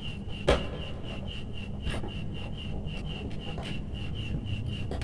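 Plastic wall switch and its wires being handled and worked into place, rubbing and scraping, with a sharp click about half a second in and a lighter one near two seconds. A high chirp repeats steadily about four to five times a second underneath.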